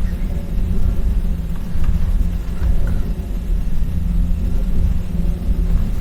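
Steady low rumble with a low hum running under it, and a few faint light clicks.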